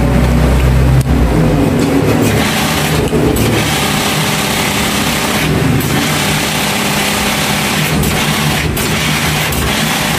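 An engine running steadily, its low hum shifting about a second and a half in.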